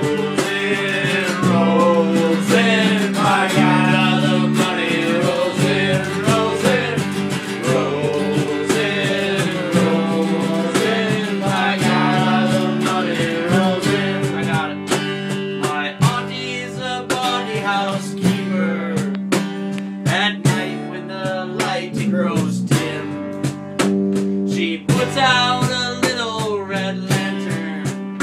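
Amateur live band music: acoustic guitar, electric guitar and bass guitar playing a country-style tune together, with a wavering melody line over strummed chords and a steady bass line.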